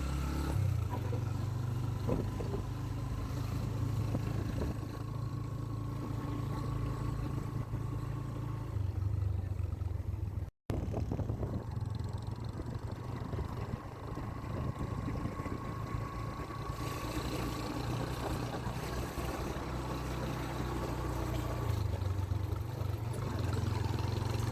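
Motor vehicle running with a steady low rumble of engine and road noise; the sound cuts out briefly just over ten seconds in.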